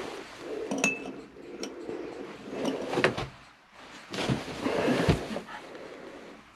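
Small wooden pieces being handled on a workbench: irregular scraping with a few light knocks and clicks.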